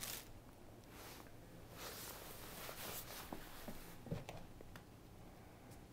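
Faint soft thumps and taps of a kitten scampering and pouncing on carpet, with a slightly louder thump about four seconds in.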